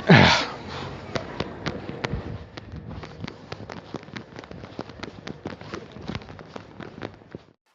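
A burp trails off in the first half second, falling in pitch. Then comes about seven seconds of scattered sharp cracks and pops, several a second, which stop abruptly.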